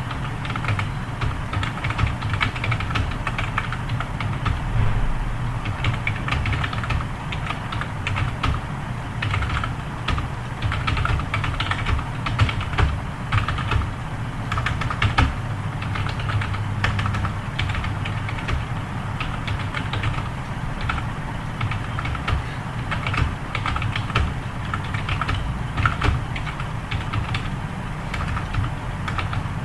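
Computer keyboard being typed on steadily, with fast, irregular key clicks throughout, over a steady low hum.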